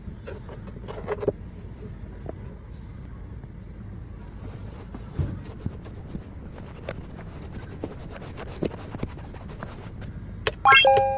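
A car's steady low rumble with many light clicks and creaks over it. A short, loud pitched tone comes in near the end.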